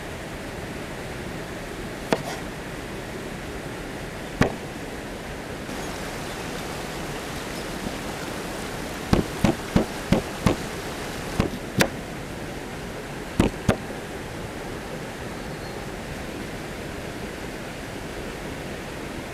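Cooking sounds: a steady hiss with scattered sharp knocks and clacks, including a quick run of them about nine to ten and a half seconds in.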